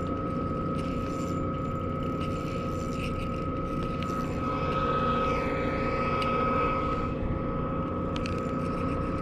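A steady mechanical drone with a constant whining tone, swelling slightly about halfway through.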